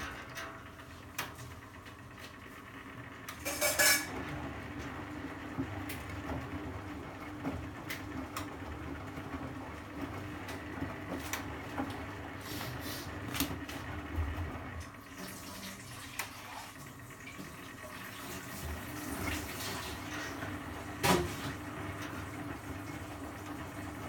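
Bendix 7128 washing machine mid-wash, its drum turning the load through water over a steady motor hum, with scattered small clicks and two sharper clinks, about four seconds in and near the end.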